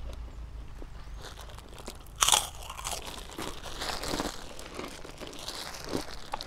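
Chewing and crunching of crispy fried food eaten by hand, with one loud crisp bite about two seconds in followed by softer crunches.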